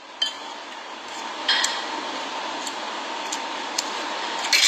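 Metal spoon clinking and scraping against a plate while eating, a few scattered clinks with the loudest near the end, over a steady background hiss and faint hum.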